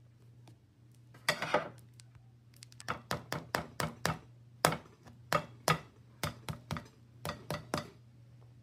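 Kitchenware knocking and clinking: a short clatter about a second in, then a run of about fifteen sharp strikes, two or three a second at an uneven pace, stopping near the end.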